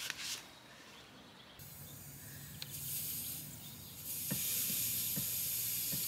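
Air hissing steadily out of the open valve of a Flatt Camper Plus inflatable levelling cushion under a caravan wheel as it is let down. The hiss starts about a second and a half in and grows louder about four seconds in.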